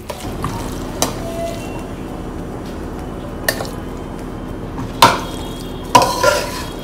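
A metal spoon scraping and clinking against a steel kadai and the steel jar of a mixer-grinder as cooked onion-tomato masala is scooped across. There are several sharp clinks, the loudest about five and six seconds in.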